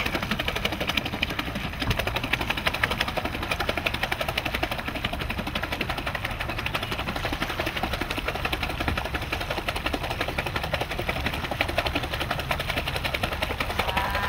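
A hand rapidly and repeatedly slapping and splashing the surface of shallow water in a steady fast rhythm, done to call fish in.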